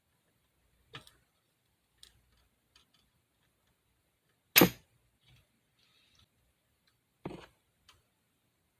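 A handful of sharp clicks and knocks from small work on the ECU's circuit board, about four of them, with one much louder knock about halfway through.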